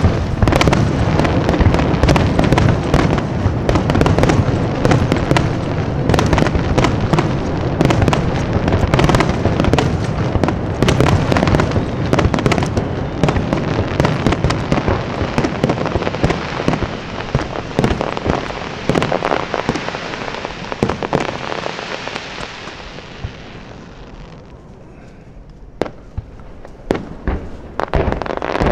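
Dense barrage of fireworks shells bursting, with overlapping booms and crackle. After about twenty seconds it dies away into a lull, then a few single bangs come near the end.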